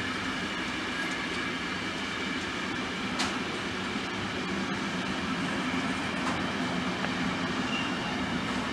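Freight wagons loaded with truck semi-trailers rolling slowly past on the rails, a steady rumble of wheels with one sharp click about three seconds in. The train is running slowly because the signal ahead shows stop.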